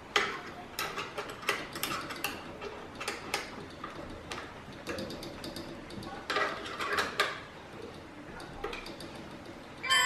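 Allen key turning and seating in the clamp bolts of a water filter module as they are tightened: irregular light metallic clicks and ticks.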